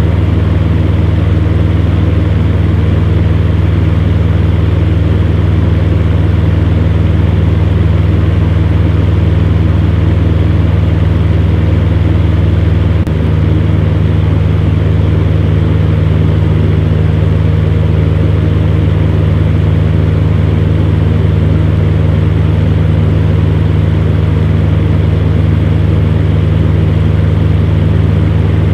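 Electric fan running steadily: a constant low motor hum under an even rush of air, with one slight dip in level a little under halfway through.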